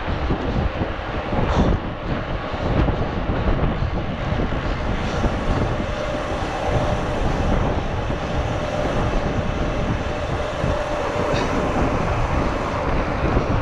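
Wind buffeting the microphone and mountain-bike tyres rumbling on asphalt while riding along at speed, a steady low noise with a few sharp clicks from the bike.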